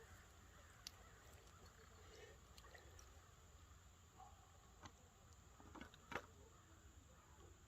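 Near silence: faint outdoor ambience with a few faint, short clicks, one about a second in and a few more between five and six seconds in.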